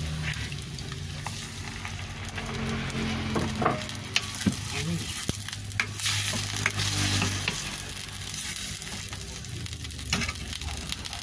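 Food sizzling in oil in a pan while being stirred, with a few sharp clicks of the utensil against the pan.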